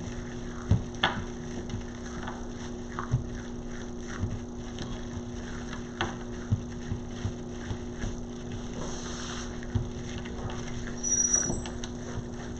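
Scattered light clicks and rustles of ribbon being handled and fastened onto a wreath board, over a steady low electrical hum.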